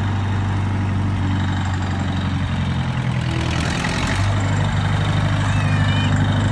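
Tractor engine idling steadily, its note shifting briefly a little past halfway before settling again.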